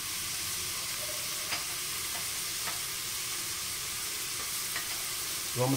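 Chopped onion, garlic, red pepper and leek frying in lard in a pressure cooker: a steady, even sizzle with a few faint pops.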